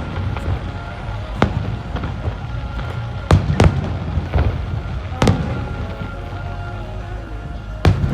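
Fireworks shells bursting overhead: about six sharp bangs spread irregularly through the few seconds, two close together near the middle, over a continuous low rumble from the display.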